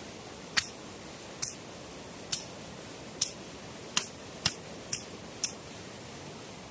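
Eight sharp clicks at uneven intervals, about one a second, over a steady hiss.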